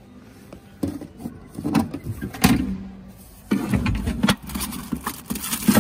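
Hand working the vending machine's metal pickup-tray flap and taking out a packaged face mask: a run of irregular knocks and rattles with rustling, starting about a second in, pausing briefly, then coming thicker.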